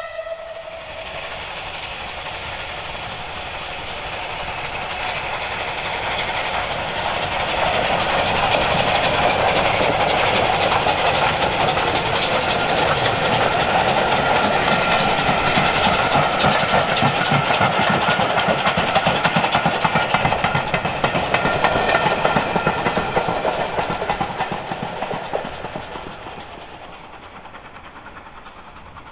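Bulleid Battle of Britain class three-cylinder steam locomotive working hard uphill with five coaches: its exhaust beats grow louder as it approaches and passes, then the coaches clatter over the rail joints before the sound dies away near the end.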